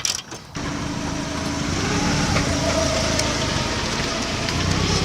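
A motor vehicle's engine running steadily, cutting in abruptly about half a second in.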